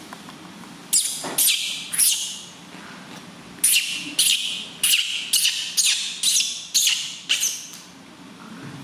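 Newborn baby monkey crying: about eleven shrill, high-pitched cries, each starting sharply and falling in pitch. Three come close together about a second in, then after a short pause a run of about two a second.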